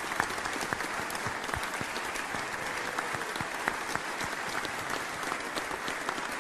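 Sustained applause from a large audience of legislators, many hands clapping in a dense, steady patter.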